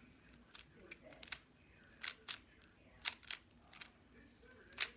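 Plastic clicks and clacks of a 3x3 speed cube's layers being turned during a solve, coming in short groups of one or two about every half second to a second.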